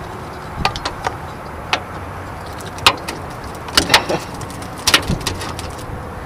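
Irregular sharp clicks and knocks from pliers working a large hook out of a small catfish's mouth, over a steady low background noise.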